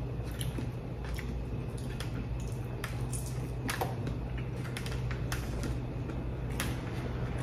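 Close-up eating sounds: a mouthful of karaage fried chicken and rice being chewed, with chopsticks clicking now and then against the bento tray. A steady low hum runs underneath.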